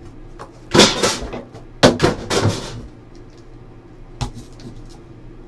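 A cardboard trading-card box being handled and opened on a table: a few loud scraping rubs and knocks in the first three seconds, then a short sharp knock about four seconds in.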